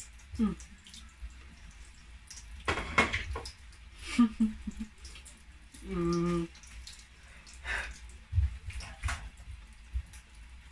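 Mouth sounds of a person eating a chicken and kale tortilla wrap: irregular wet chewing and lip smacks, with a short closed-mouth hum about six seconds in.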